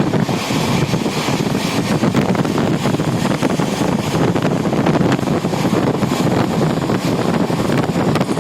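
Steady noise of a moving passenger train, heard from the train itself, with wind buffeting the microphone.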